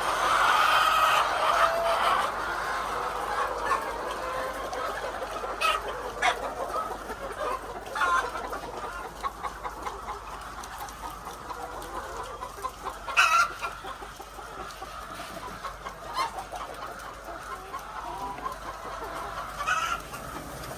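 A flock of laying hens clucking and calling together, loudest near the start, with a few short sharp knocks, the loudest about two-thirds of the way in.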